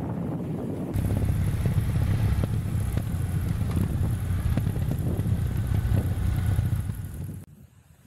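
Wind buffeting the microphone over a low rumble, then from about a second in a motorcycle engine running on the move with wind rush, most likely the rider's Kawasaki W800 air-cooled parallel twin. It cuts off shortly before the end.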